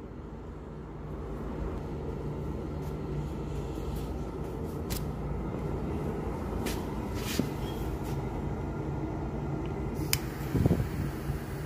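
Steady low mechanical hum of a machine running, a little louder after about a second, with a few faint clicks and some low thumps near the end.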